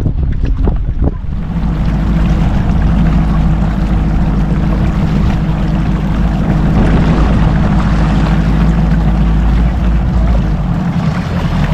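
Outboard motor of a bass boat running steadily underway, with wind and water rushing past. A few knocks sound in the first second.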